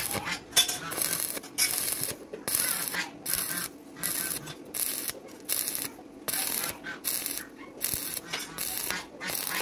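Stick (arc) welding arc crackling in short bursts, about two a second, as the electrode is struck and broken again and again to build a stitched bead joining a steel plate to a steel bar.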